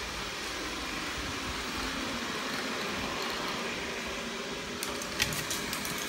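A steady fan-like whooshing hum, with a few sharp clicks and taps near the end.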